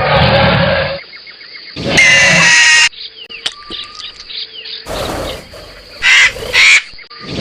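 Creature sound effects: loud, shrill, screeching calls, one about a second long about two seconds in and two short shrieks after six seconds, with quieter jungle ambience and bird chirps between them.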